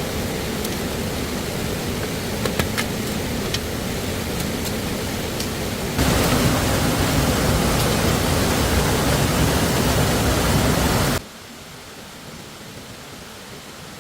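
Steady rushing of stream water with a few light clicks early on. The water is louder from about six seconds in, then drops abruptly to a much quieter hiss near the end.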